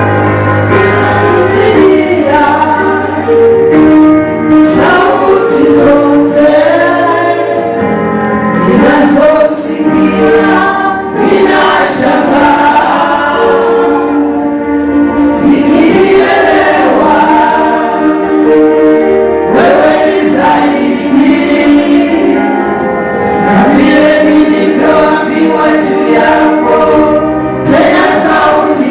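Gospel choir singing with music, male and female voices together, held notes throughout.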